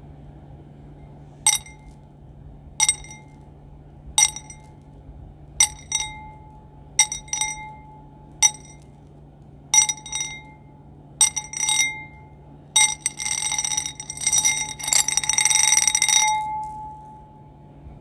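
A small glassy or bell-like object is tapped, giving clear clinks about every second and a half, some doubled, each with a short ringing tone. Later it is rung rapidly for about three seconds in a dense jingling ring that cuts off suddenly.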